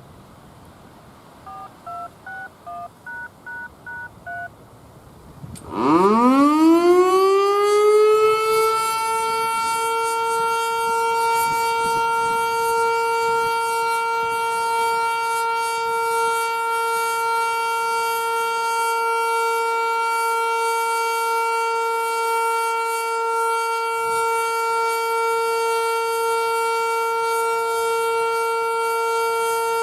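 A quick string of about eight touch-tone beeps, then an American Signal T-112 electromechanical warning siren winds up, rising steeply in pitch about six seconds in, and settles into one loud, steady tone on its Alert test cycle.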